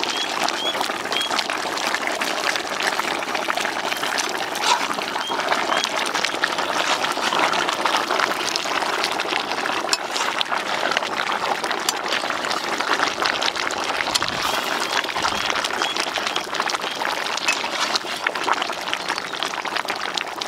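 Chicken pieces in gravy boiling hard in a large kadai over a wood fire: steady bubbling and sizzling, thick with many small crackles.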